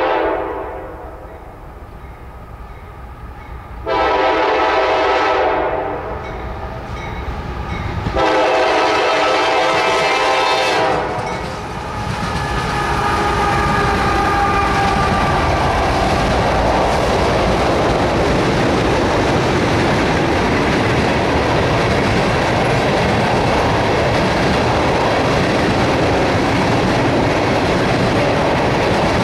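CSX freight locomotive's air horn sounding for a road crossing: the tail of one blast, then two more long blasts about four and eight seconds in. From about twelve seconds the locomotives, then a long string of empty ethanol tank cars, pass close by with a steady rumble and clickety-clack of wheels on rail.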